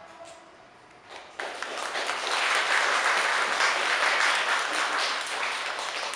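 Audience applauding, starting about a second and a half in, swelling and then tapering off near the end.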